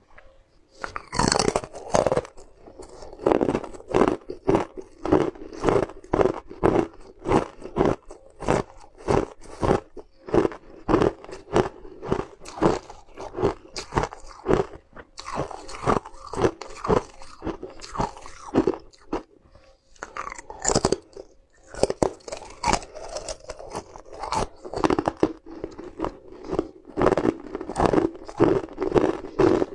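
A person biting into and crunching pieces of colored ice, with crisp crunches coming a few times a second and short pauses between bites.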